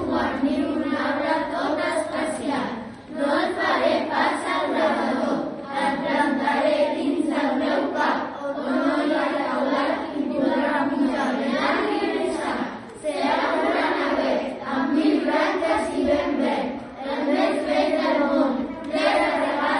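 A group of children's voices in unison chorus, performing a poem together in a sing-song chant, phrase by phrase with short pauses between lines.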